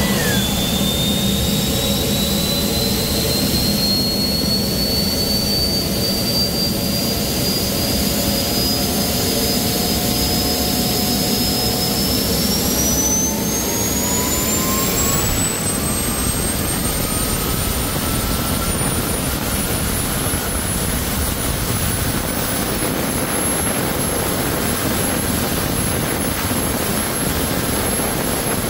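Turbocharger-based home-built turbojet engine running loud, its turbine whine climbing in pitch as it spools up, with a steep rise about twelve to fifteen seconds in before levelling off high. An electric leaf blower blows into the compressor inlet at first.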